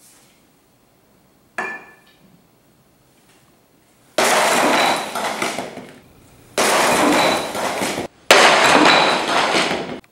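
Sledgehammer smashing a cinder block on a plywood board: three loud crashes of breaking concrete and scattering rubble, each starting suddenly and dying away over a second and a half, about four, six and a half and eight seconds in. Before them, just under two seconds in, comes one short sharp clink with a brief ring.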